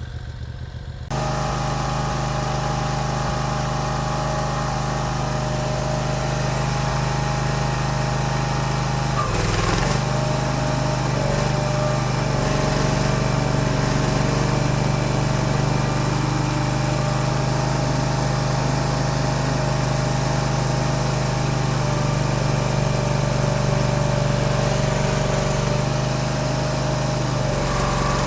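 Barreto E30SGB tracked stump grinder running at high revs, its engine steady and louder from about a second in. The pitch sags briefly a few times, around nine and eleven seconds in and again near the end, as the engine takes load.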